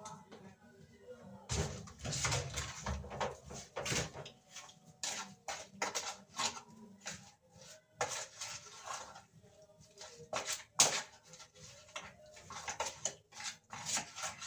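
Hands mixing seasoned chunks of raw beef kidney in a plastic container: irregular wet squelches and light knocks of the plastic tub, busiest in a stretch about two seconds in.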